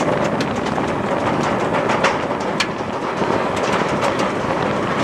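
Bolliger & Mabillard giga coaster train climbing the chain lift hill: the lift chain runs with a steady rattle and irregular sharp clicks, under wind noise on the microphone.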